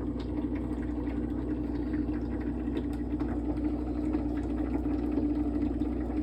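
A steady mechanical hum, like a small motor or engine running, unchanging throughout, with a few faint scattered ticks.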